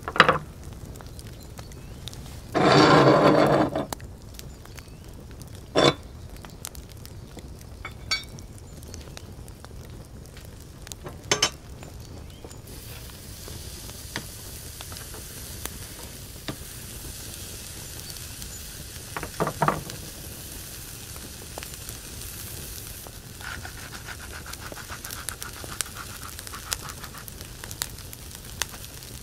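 Beef steaks sizzling on a cast-iron grill grate over charcoal, the sizzle starting about halfway through as the meat goes down, with a few clicks and knocks of tongs on the grate. About three seconds in there is a short, loud rush of noise lasting about a second.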